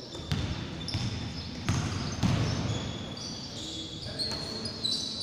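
Basketball bouncing on a wooden gym floor as a player dribbles: a series of sharp thumps spaced about half a second to a second apart.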